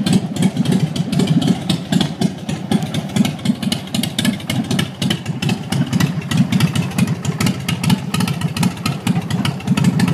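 2005 Big Dog Pitbull motorcycle's V-twin engine idling, a loud, uneven stream of exhaust pulses with no revving.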